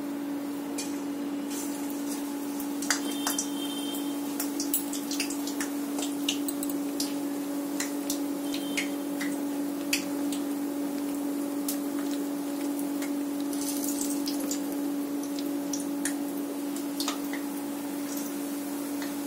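Batter-coated water lily flower fritters frying in hot oil in a steel wok: scattered crackles and pops of spitting oil over a steady low hum.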